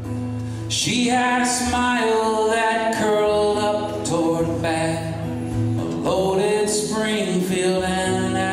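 A man singing and accompanying himself on acoustic guitar. The voice comes in about a second in with long held notes.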